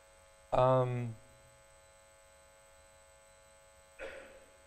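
A man's voice makes a short, steady-pitched 'mm' about half a second in, and a short breathy sound follows near the end. A faint steady electrical hum runs underneath.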